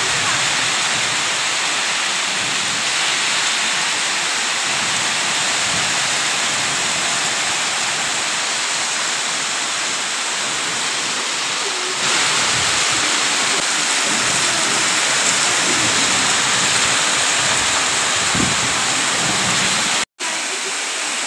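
Torrential rain pouring down in a steady hiss, with water streaming off the roof edges. It gets a little louder about halfway through and cuts out for an instant near the end.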